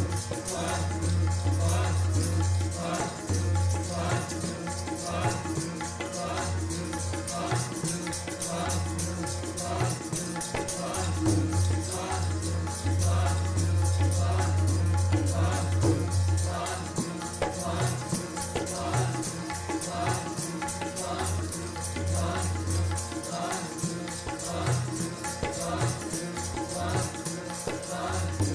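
Sikh kirtan music: tabla and harmonium playing at a steady, fast beat, with a jingling hand percussion keeping time.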